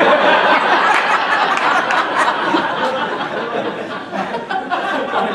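A roomful of people laughing and talking over one another. It is loudest at the start and eases off a little.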